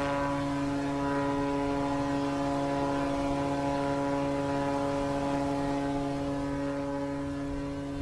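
Passenger ferry's horn sounding one long continuous blast, a deep steady note with many overtones, cutting off abruptly at the very end.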